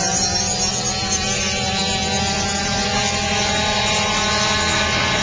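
Dirt bike engine running steadily, its pitch rising slightly during the first second and then holding.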